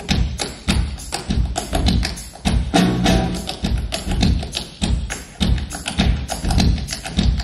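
Tap dancing on a wooden bar top: quick, uneven runs of sharp taps and heavier stamps, with a live band's music underneath.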